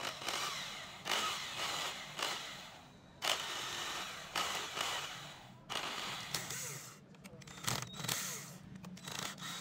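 Knocks and rubbing of a plastic-bodied electric drill being handled and turned over on a wooden tabletop, about once a second. Near the end come short, denser clicks and whirrs as a cordless drill-driver works on the drill's housing screws.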